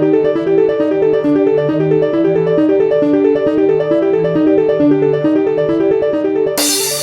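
Background music: a fast, evenly repeating figure of keyboard notes, with a sudden hissing swell near the end.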